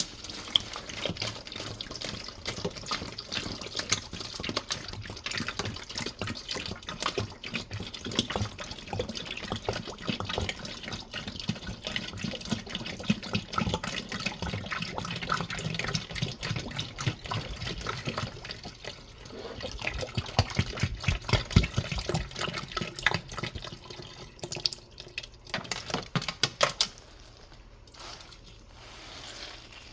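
Soapy water in a washing machine overloaded with dish soap, splashing and running with a dense, fast crackle of small splashes. It dies down sharply near the end.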